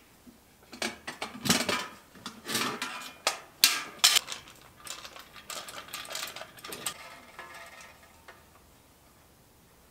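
Irregular metallic clicking, knocking and rattling as a chrome moped rear fender and its taillight housing are handled and fitted together. The sounds come thick for several seconds, then thin out and stop.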